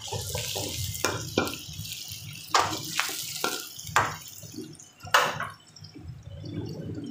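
Metal ladle scraping and clanking against a wok while vegetables and paneer are stir-fried in sizzling oil. The strokes come irregularly, every half second to a second, with the loudest about five seconds in.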